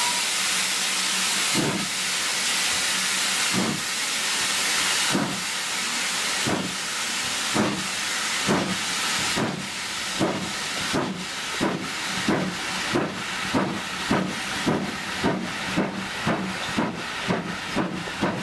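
Steam locomotive pulling away, heard from a carriage: a steady hiss of steam, then exhaust beats that start slowly, about one every two seconds, and quicken to roughly two or three a second.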